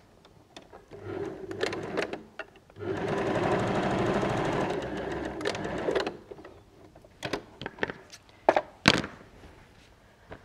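Janome electric sewing machine stitching a corner seam in a bag lining: a short slower run, then a steady run of about three seconds. A few sharp clicks follow near the end.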